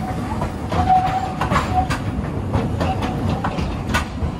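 Hiroden 800-series tram rolling past close by, with a steady low rumble and a series of wheel clacks over the rail joints and points. A short whining tone comes in about a second in.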